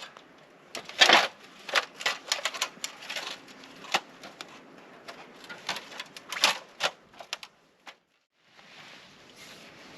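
A quick, irregular run of clicks and knocks that breaks off abruptly about eight seconds in, followed by a faint steady rush.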